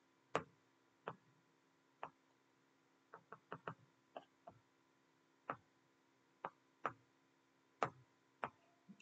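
Faint, sharp computer mouse clicks, about fifteen at an irregular one or two a second, with a quick run of five or so between three and four and a half seconds in.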